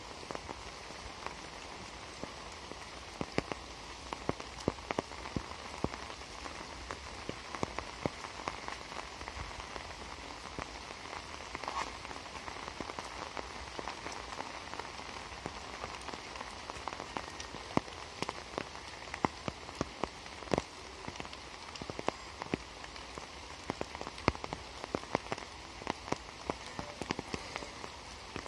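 Steady rain: a constant hiss of falling rain with many sharp, irregular taps of heavier drops.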